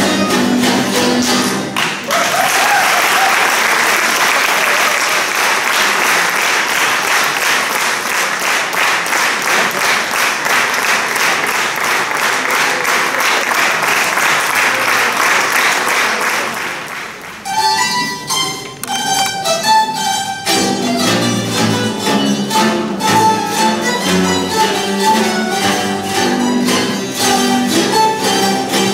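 A Hungarian citera (zither) ensemble ends a tune, and the audience applauds for about fifteen seconds. The zithers then start the next tune with picked and strummed notes, and lower notes join a few seconds later.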